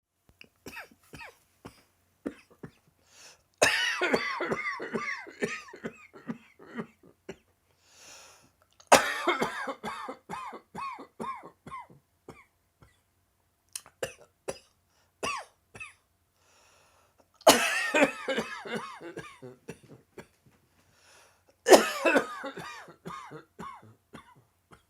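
A person in a dry-throat coughing fit: four bouts of rapid, repeated coughs, each starting loud and tailing off over a couple of seconds, with smaller single coughs between them. It is a dry cough brought on by a parched throat.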